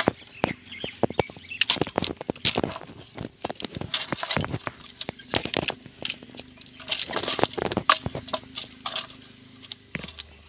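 Irregular clattering, clicking and rustling of a bundle of cane sticks being handled and shifted on a wet wooden plank.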